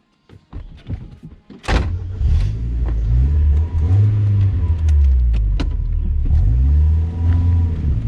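A few light clicks, then the NA Mazda Miata's inline-four engine starts about a second and a half in and runs, its revs rising and falling a couple of times.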